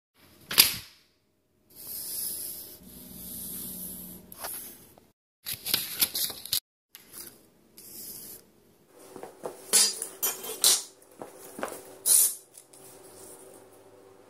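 Paper knife template being handled: rustling and rubbing against a surface under a hand, in short bursts broken by abrupt cuts, with a sharp click about half a second in.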